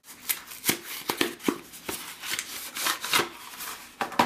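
Plastic MRE packaging crinkling and rustling as it is handled: the chicken and dumplings entree pouch and the plastic flameless ration heater bag, with irregular sharp crackles throughout and the loudest near the end.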